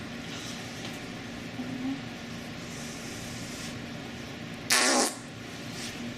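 A short, loud, raspy fart sound effect about three-quarters of the way in, over a steady low hum.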